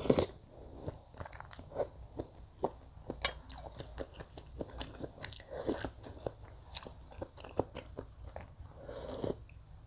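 A person eating soup close to the microphone: a slurp from a spoon, then chewing goat meat with many small wet clicks and smacks of the mouth. Near the end comes a longer slurp, sipping broth from the rim of a bowl.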